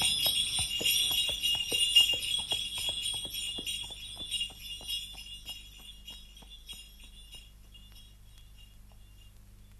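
Sleigh bells jingling in a steady rhythm, about three shakes a second, fading slowly away: a horse-drawn sleigh moving off across the snow.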